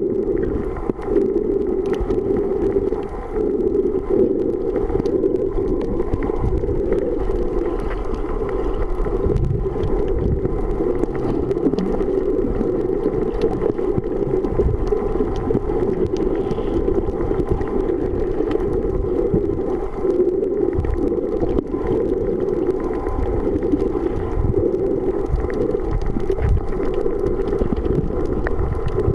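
Steady, muffled underwater water noise picked up by a camera in a waterproof housing.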